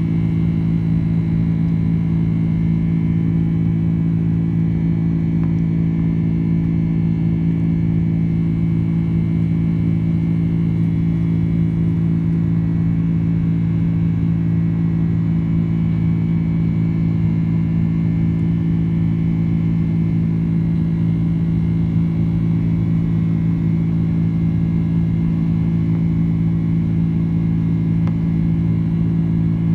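Steady low drone of a Boeing 767-300ER's engines and airflow inside the cabin during the climb after takeoff, with a few faint steady tones above it.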